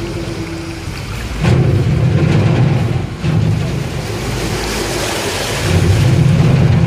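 A boat's engine running with a low rumble that grows louder about one and a half seconds in and again near the end, over the rush of water and wind noise on the microphone.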